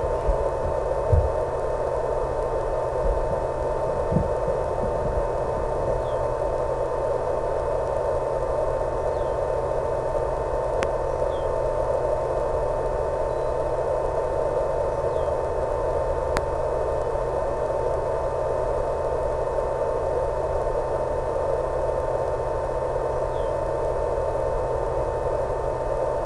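Steady static hiss with a low hum and a constant high tone, the audio channel of an analog FPV video link.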